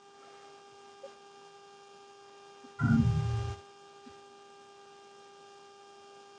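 Steady electrical hum made of several even tones, with one brief, louder low-pitched noise about three seconds in.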